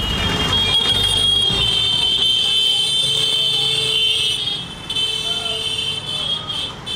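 High-pitched vehicle horns honking in dense motorbike and rickshaw traffic, one horn held for about four seconds, then short repeated toots near the end, with a lower horn sounding in the middle over the hum of engines.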